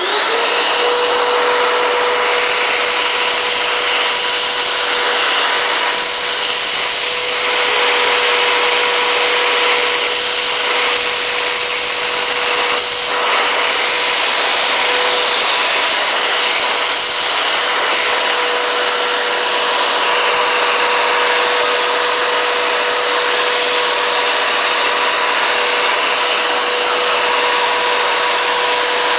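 Eureka PowerSpeed vacuum cleaner switching on, its motor whine rising quickly in pitch and then running steadily with a high whine over loud airflow hiss. A few brief rougher patches come in the first half, as it draws in grit.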